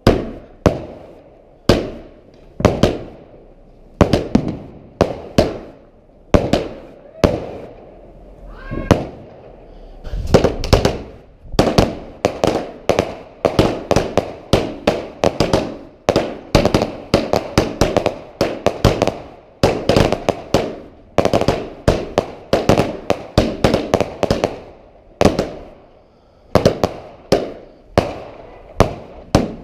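Fireworks going off in a steady run of sharp bangs, about one a second at first, then coming faster, several a second, from about ten seconds in, with crackling between the bangs.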